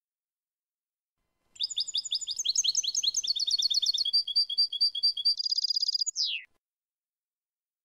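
European goldfinch singing one song phrase: a rapid run of high twittering notes, then a short buzzy trill and a quick falling note to finish. It is a clean goldfinch song of the kind used as a training model for captive birds.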